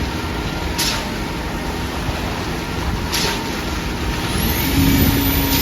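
Concrete pump truck running steadily during a pour, with short hissing bursts about every two seconds. Near the end a high whine rises and holds.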